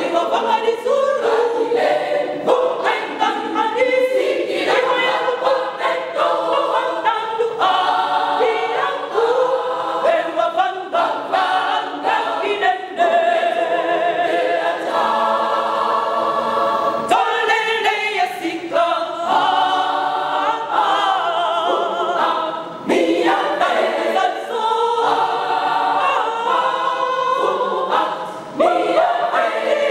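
Women's choir singing together, the voices running on without a break.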